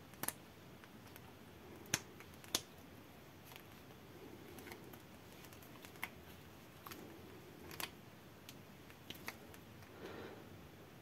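Faint, irregular small clicks and ticks of metal parts as a homemade key turns and seats the firing valve in an airsoft AK gas magazine.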